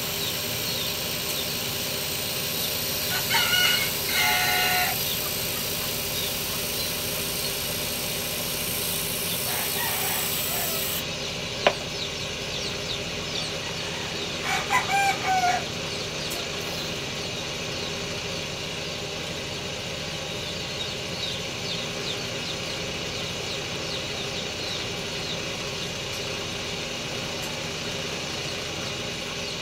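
Rooster crowing: a loud crow about three seconds in, a fainter one near ten seconds and another loud one about fifteen seconds in. A single sharp click near twelve seconds, over a steady background hum.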